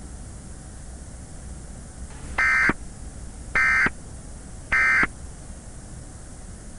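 Three short buzzy EAS digital data bursts, the end-of-message code that closes an emergency alert, each about a third of a second long and about a second apart, over a steady static hiss.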